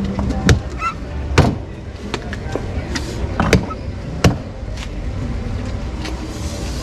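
A machete chopping into a coconut: several sharp cracking blows at irregular intervals, the strongest about half a second, a second and a half, three and a half and four and a quarter seconds in. The drunk coconut is being split open to get at its flesh.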